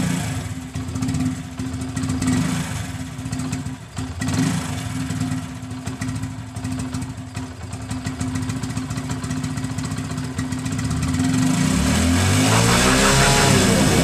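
Single-cylinder Honda commuter motorcycle engine idling, its exhaust note played through a plastic water jug whose spout is jammed into the silencer outlet as a homemade sound changer. Music comes in near the end.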